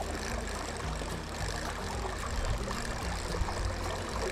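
Steady rush of stream water, with a constant low rumble under it.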